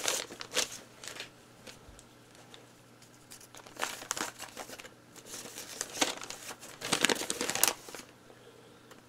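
Paper letters being handled, rustling and crinkling in several bursts, the loudest near the end, then stopping.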